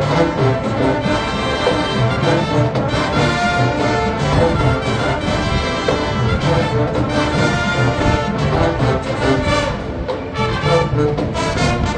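High school marching band playing a loud, steady passage: massed brass over regular percussion hits.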